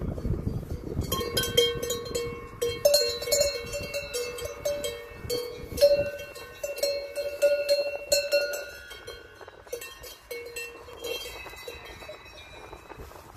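Metal cowbells on the necks of walking cows, clanking and ringing irregularly at several different pitches. The clanking is busiest in the first two-thirds and thins out near the end.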